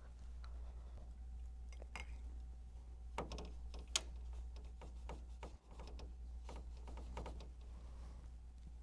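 Paintbrush tapping and scrubbing on a plastic watercolour palette: a scatter of light clicks and taps, with one sharp tap about four seconds in. A low steady hum runs underneath.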